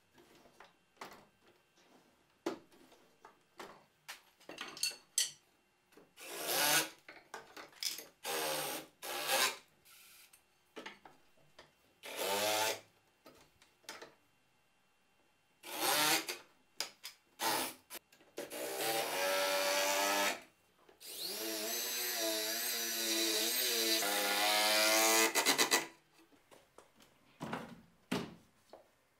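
Cordless drill-driver driving screws into wood: short runs, then a longer run of several seconds whose pitch wavers and rises, among knocks and clatter from boards and tools being handled.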